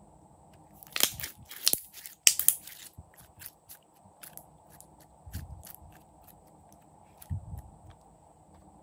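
Clear glitter slime squeezed and pulled in the hands, crackling and popping in sharp little clicks. The clicks are thickest and loudest about a second in, then thin out to scattered single pops, with two soft low thuds near the middle and the end.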